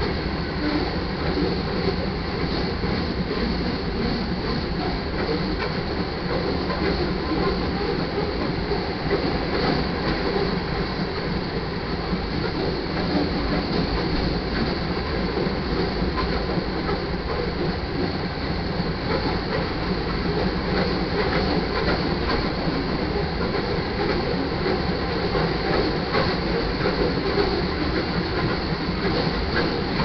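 Loaded iron ore cars of a freight train rolling past: a steady rumble and clatter of steel wheels on the rails.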